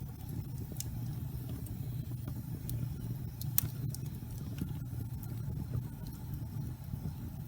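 Wood fire burning in a fireplace: a steady low rumble with scattered sharp crackles and pops, one louder pop about three and a half seconds in.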